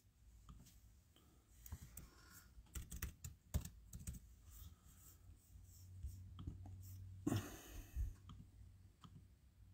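Faint, irregular taps of a Mac laptop's keyboard keys and trackpad as someone types and clicks, with a brief louder rustle about seven seconds in.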